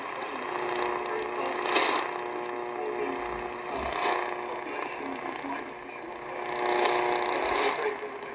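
Shortwave broadcast on 11710 kHz coming through a C. Crane Skywave SSB 2's speaker: an announcer's voice under steady static and hum. The reception is on the GA-800 antenna, which has quite a bit more noise to it than the MLA-30 Plus.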